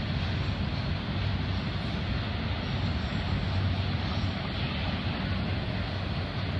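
Florida East Coast Railway freight train's autorack cars rolling across a railroad bridge: a steady low rumble.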